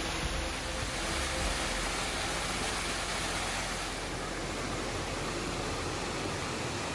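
Waterfall water rushing steadily, an even roar with no breaks.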